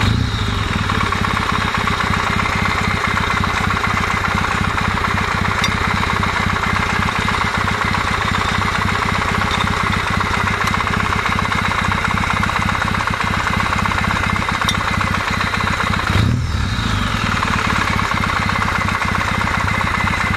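Kawasaki W650 parallel-twin engine idling steadily, with one quick throttle blip about 16 seconds in. With the camshaft drive gear mesh adjusted tighter, the knock gives way to a buzz like an electric motor running and a light whistle when the throttle is opened.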